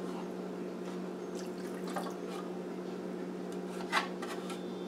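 Lemon juice and zest dripping and trickling from a plastic measuring cup into a pot of pasta in cream sauce, with a few faint clicks and a short knock about four seconds in. A steady low hum runs underneath.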